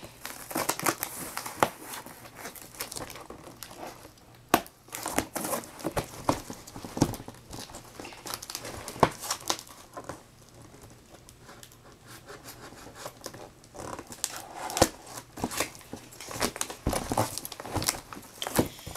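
Long cardboard shipping box for a skateboard deck being handled and opened: irregular crinkling, tearing and rustling, with scattered sharp cracks.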